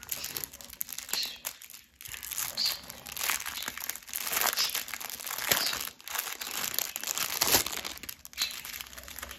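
Small plastic bags of diamond-painting rhinestones crinkling as they are picked up and handled: an irregular run of rustles and crackles that gets busy about two seconds in and thins out near the end.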